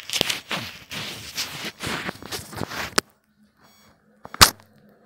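Tissue rubbing and wiping directly over the phone camera's lens and microphone, a close, scratchy rustling that stops abruptly with a click about three seconds in. A single short, sharp hiss follows near the end.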